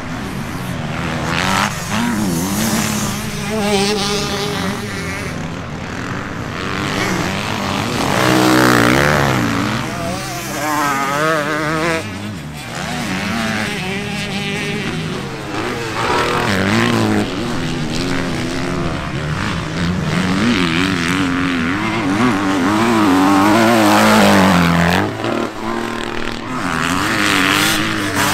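Kawasaki KX250 motocross bike engine being ridden hard, revving up and dropping off again and again as the rider accelerates, shifts and backs off for turns.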